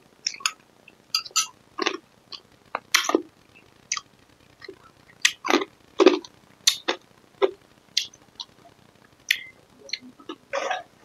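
Close-up eating sounds of a person slurping and chewing lod, a Cambodian dessert of soft green rice-flour noodles in coconut milk. The sounds come as irregular short, wet smacks and slurps with small mouth clicks between them.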